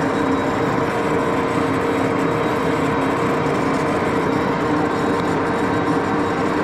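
Axelson engine lathe running steadily while turning a cut on a large steel shaft: a constant mechanical hum and gear whine of several tones over the hiss of the cut.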